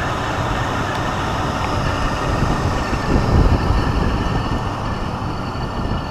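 Steady vehicle rumble, a low noisy sound that swells a little over three seconds in.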